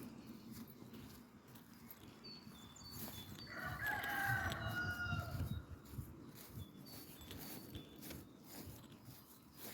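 A rooster crowing once, a single call of about two seconds in the middle, with small birds giving short high calls around it.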